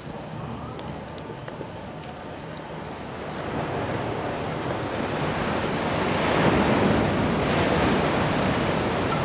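Pot of mushroom soup boiling over a wood fire: a steady rushing hiss that grows louder from about three seconds in, with a few faint clicks early on.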